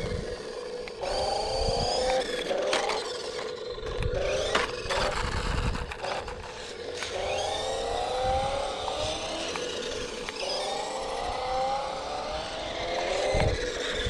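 Small electric motor of a toy RC monster truck revving in repeated bursts, its whine rising in pitch with each burst over a steady hum, with a few knocks and thumps.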